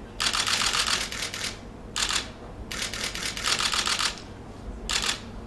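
Rapid clattering clicks in four bursts: a long one at the start, a short one about two seconds in, another long one about three seconds in, and a brief one near the end.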